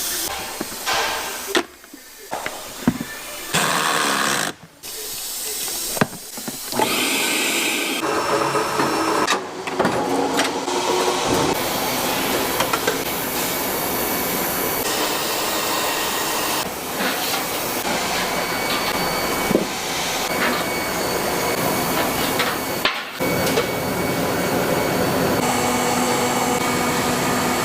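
Machine and tool noise in short clips joined by abrupt cuts: a steady hissing motor sound with scattered knocks. From about eight seconds in, a steadier rushing motor noise runs on, with a brief dropout about twenty-three seconds in.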